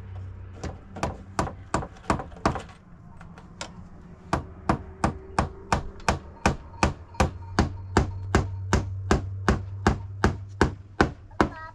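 Hammer driving nails into wooden planks, sharp strikes at about three a second with a brief pause about three seconds in, stopping shortly before the end.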